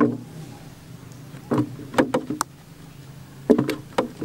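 A series of short knocks and clatters in irregular clusters, as of kitchen utensils and a container being handled while food is packed into it, over a low steady hum.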